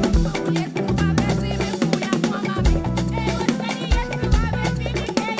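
Live praise band playing an upbeat dance groove: drum kit, a sustained bass line and a wavering lead melody.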